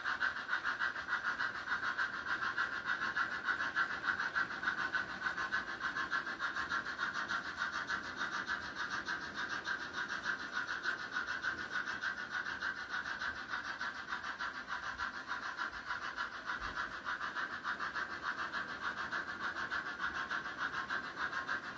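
HO-scale model train running on sectional track, its metal wheels rolling and the drive running as a steady whir that pulses quickly and evenly.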